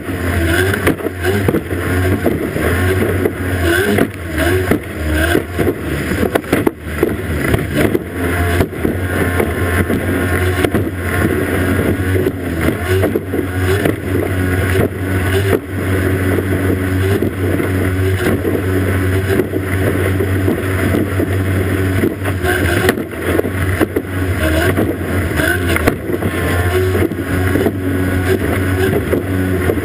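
Racing powerboat's outboard motor running steadily at speed, with the rushing hiss of spray thrown up around the hull.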